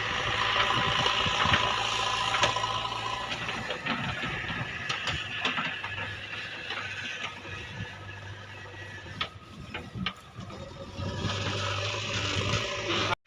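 JCB 3DX backhoe loader's diesel engine running with a steady low hum that fades in the middle and comes back near the end, with scattered metallic clicks and knocks from the bucket-change work.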